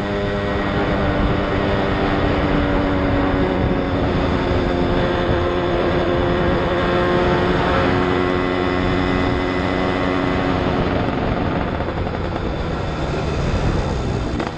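Yamaha RD135's single-cylinder two-stroke engine running as the motorcycle is ridden at a steady road speed, with wind noise over it. The engine note thins out near the end as the bike eases off.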